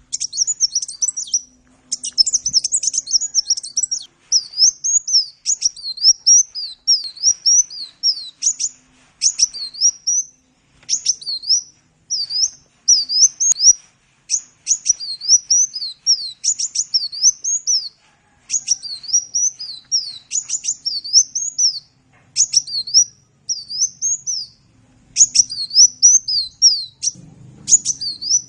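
Sunbird (Indonesian 'kolibri') singing a rapid, high twittering song of short up-and-down chirps, delivered in phrases of a second or two with brief pauses between them. A faint low hum comes in near the end.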